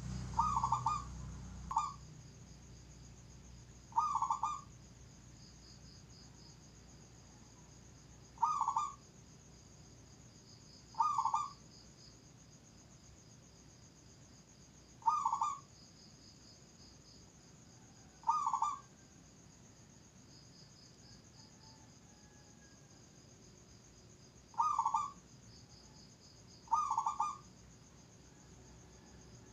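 Zebra dove (perkutut) cooing: short low coos repeated at uneven gaps of a few seconds, about nine in all. A steady high-pitched trill runs underneath.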